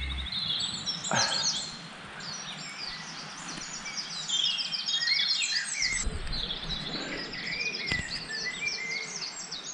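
Dawn chorus: several small songbirds singing and chirping continuously over a steady background hiss, with a single soft knock about a second in.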